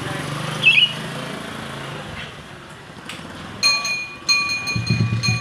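Bird-linked "ting ting ting": from about the middle, a run of sharp metallic ting strikes, each ringing on, like a bakso seller tapping a bowl. A short bird chirp comes about a second in, and a low engine rumble starts near the end.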